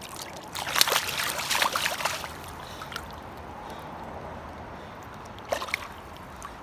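A hooked chum salmon splashing and thrashing in shallow river water, a loud flurry lasting about two seconds, then one short splash near the end, over the steady run of the stream.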